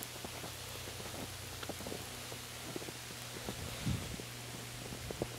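Footsteps crunching through fresh, deep snow: soft irregular crackles with one heavier low thump about four seconds in, over a steady low hum.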